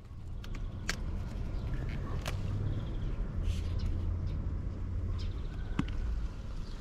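Sweet pepper plants being harvested by hand: a few sharp snaps as fruit stems break and the plant is handled, over a low steady rumble.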